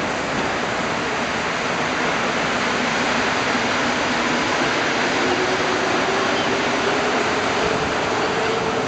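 Steady rushing din of a Metro station platform and train car while passengers get off and board, with a faint rising whine coming in about five seconds in.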